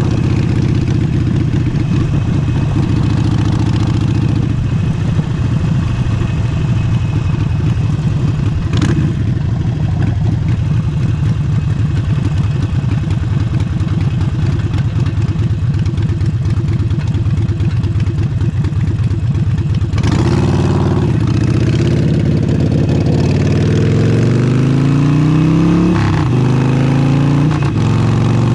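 Harley-Davidson Forty-Eight's V-twin engine through a Vance & Hines exhaust, running steadily at cruising speed, with one sharp click about nine seconds in. Over the last third it accelerates, the engine note climbing and dropping suddenly twice as the rider shifts up through the gears.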